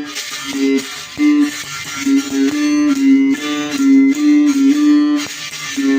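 Two-string berimbau struck with a stick in a steady rhythm, its notes switching back and forth between a lower and a higher pitch.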